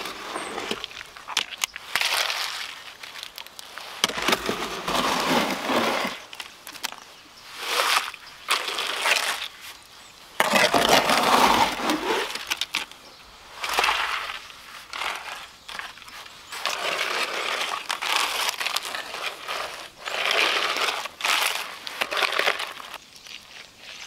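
Shovel scooping and scraping wet concrete out of a wheelbarrow and spreading it into a wooden form, in about seven rough scraping strokes a couple of seconds apart.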